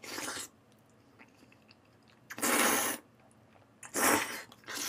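A person eating from a bowl held to the mouth: three short noisy bursts of slurping and shovelling in food, with quiet chewing between.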